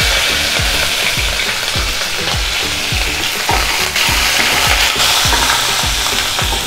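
Tempering seeds, green chillies and curry leaves sizzle in hot oil in a non-stick kadai while a spatula stirs them: a steady, frying hiss. A regular low thump, about three a second, runs underneath.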